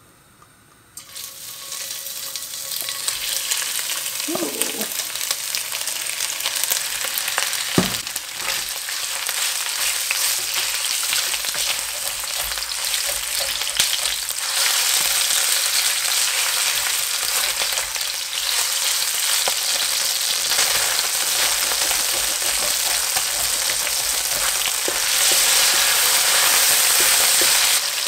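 Chicken pieces sizzling in hot oil in a wok. The sizzle starts suddenly about a second in as they hit the oil and grows louder later on, with a few knocks of the spatula as they are stirred.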